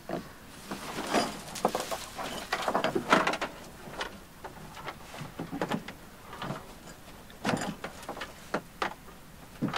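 Plastic hull of a Pelican Getaway 116 sit-in kayak knocking and scraping as it is lifted and stood upright on its end, with a dense run of knocks and scrapes in the first few seconds and then scattered bumps as it is steadied.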